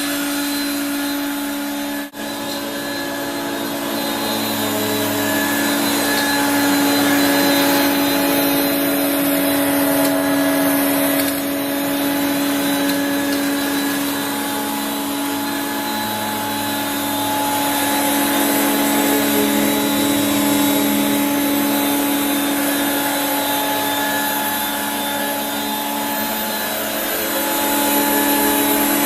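A 1985 Regina Electrikbroom PowerTeam two-motor stick vacuum running steadily, a constant motor whine over airflow hiss. Its loudness swells and eases gently, with a momentary dip about two seconds in.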